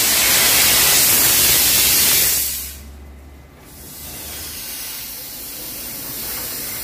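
Steady, loud hissing spray from flushing an engine cooling system with soapy water and compressed air. It breaks off suddenly about two and a half seconds in and comes back more faintly a second or so later.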